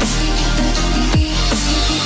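Background electronic music with a steady beat and a deep bass note that slides down in pitch about a second in.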